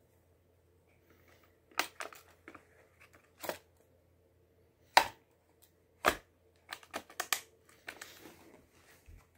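Gear on a duty belt being handled: irregular sharp clicks and knocks from the holster and training pistol, a quick cluster of them about seven seconds in, then a brief rustle near the end.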